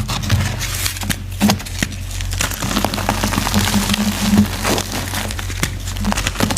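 Soft reformed gym chalk being crushed: dense crumbly crackling with many small sharp snaps.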